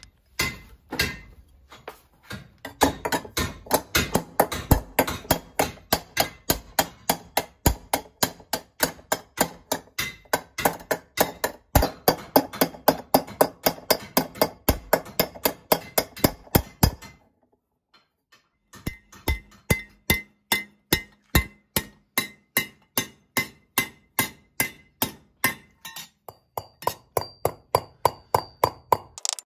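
Copper vessel being hand-forged with a hammer against an iron stake: a steady run of blows, about three a second, each with a short metallic clink. The blows stop for about a second and a half a little past the middle, then carry on.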